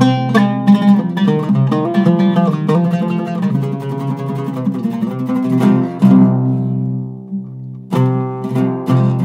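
Zaryab Nahat-style oud with a Canadian cedar top, played with a plectrum in quick runs of single notes. About six seconds in, a struck note is left to ring and fade for nearly two seconds before rapid picking resumes.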